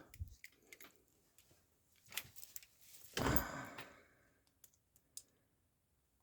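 Scattered small clicks and scrapes of a paper clip being worked in the keyhole of a rigid handcuff, trying to pick the double lock. A short, louder rush of noise comes about three seconds in, and the clicking thins out over the last second or so.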